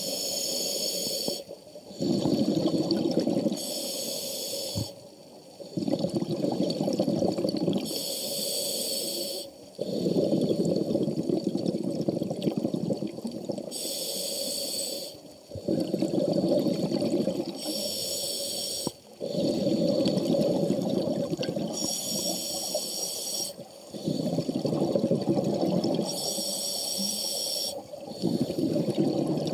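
Scuba diver breathing through a regulator underwater: a short hiss of each inhalation alternates with a longer rumble of exhaled bubbles, about seven breaths in a slow, even rhythm.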